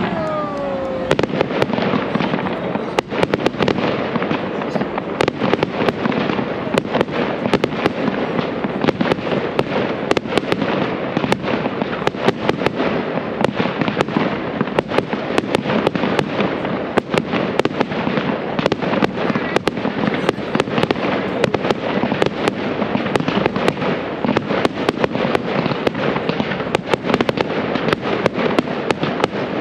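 Dense, rapid crackling pops, many a second and irregular, over a steady noisy background, with a brief falling tone right at the start.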